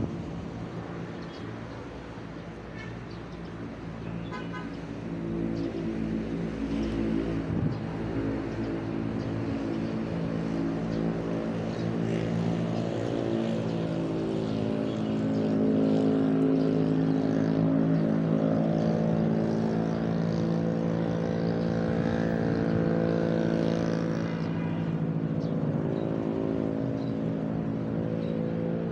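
Motor vehicle engine on the road, growing louder for several seconds, running steadily close by at its loudest, then easing off near the end.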